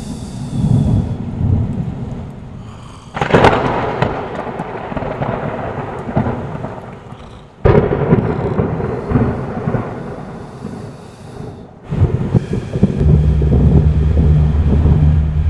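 Three sudden thunder-like rumbles, a little over four seconds apart, each fading away slowly. A low steady hum starts about two seconds before the end.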